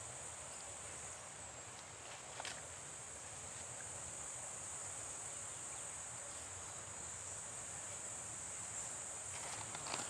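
Forest insects giving a steady, high-pitched drone.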